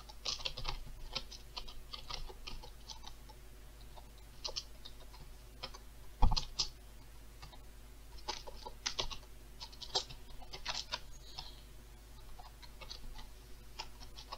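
Typing on a computer keyboard: irregular key clicks in short runs, with one louder thump about six seconds in.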